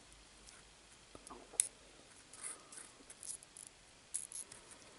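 Faint scattered clicks and scratching of fingers working a flat ribbon cable out of its connector on a CD optical pickup's circuit board, with one sharper click about a second and a half in.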